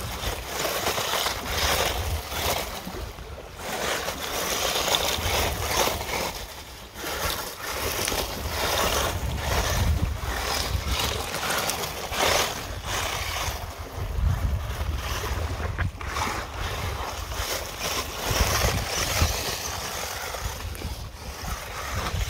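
WLToys 12427/12428 RC crawler driving over beach pebbles, its tyres giving a rough, uneven crunching, with wind rumbling on the microphone.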